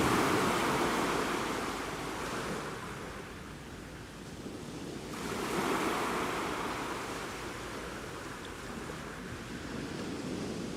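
Black Sea waves washing onto the shore, surging twice about five seconds apart and easing off between.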